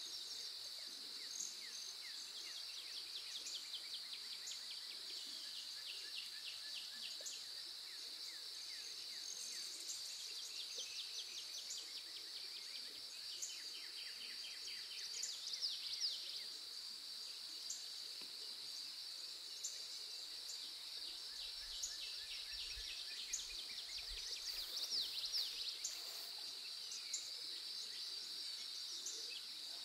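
Steady high-pitched insect chorus with birds chirping and trilling over it, outdoor nature ambience.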